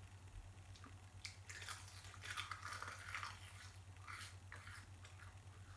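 Someone chewing a crisp dried seaweed snack with the mouth close to the microphone: faint, irregular crunches for a few seconds.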